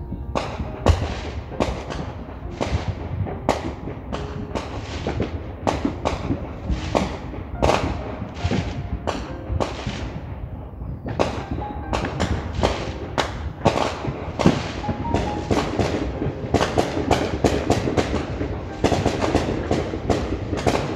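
Fireworks going off outside in rapid succession: sharp bangs and crackles several times a second, coming thicker near the end.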